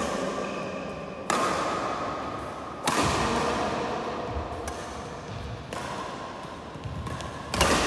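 Badminton rackets hitting a shuttlecock: four sharp hits a second or two apart, each echoing in a large indoor hall, over a faint steady hum.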